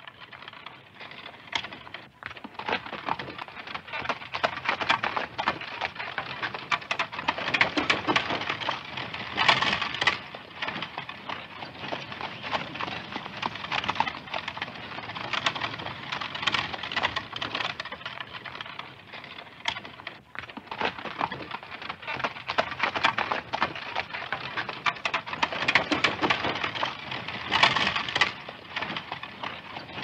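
A horse at a walk pulling a light buggy: hoof clip-clops mixed with a dense, continuous wooden clatter and rattle from the buggy, swelling louder now and then.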